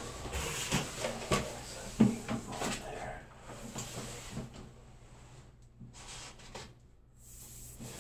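Handling noises of a worker moving tools and materials: irregular knocks, clicks and rustles, busiest in the first three seconds with a sharp knock about two seconds in, then sparser clicks.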